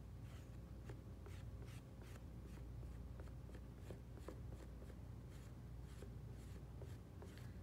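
Faint, soft scraping strokes of a gloved hand smoothing the edge of a soft clay slab, a few irregular strokes a second, over a low steady room hum.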